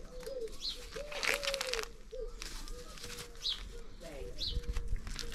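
Knife cutting and feathers and skin rustling as a dead pigeon's breast is cut out over a plastic bin bag, with the loudest rustling between about one and two seconds in. Repeated short gliding calls run alongside, with a few high bird chirps.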